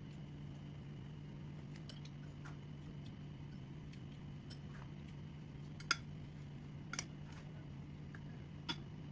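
Scattered light clicks and taps over a steady low hum, with three louder clicks in the second half.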